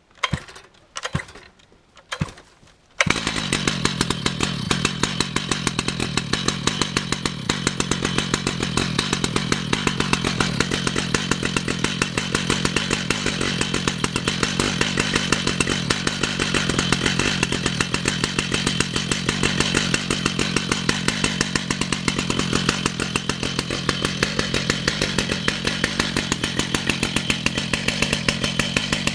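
Chainsaw, after a few short bursts, catching about three seconds in and running steadily at high speed with a fast, even pulse, as used for milling a red oak log.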